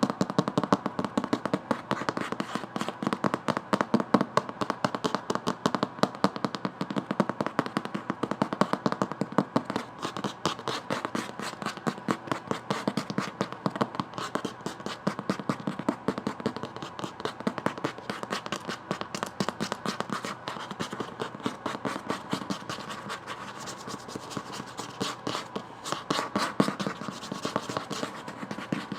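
Fast, continuous tapping on a book, with no let-up.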